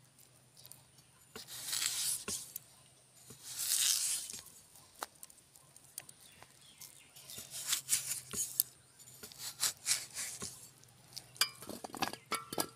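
Raw potato sliced into thin rounds on a bonti, a fixed curved blade: two longer rasping cuts through the flesh, then a run of short, quick cuts in the second half.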